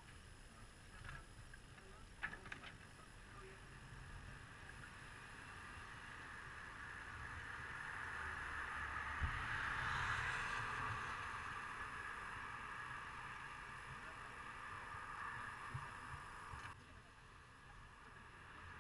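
Faint hiss of a vehicle passing along a wet street, swelling to a peak about halfway through and then fading, over a low rumble with a few faint clicks near the start. The sound cuts off suddenly near the end.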